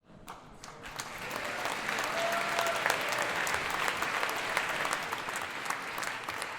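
A crowd applauding, dense clapping that swells over the first two seconds and then holds steady.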